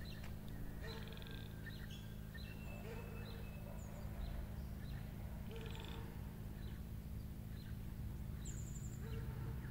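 Birds calling in the open: scattered short chirps, two quick rattling trills, and one held whistle about two and a half seconds in, over a faint low steady rumble.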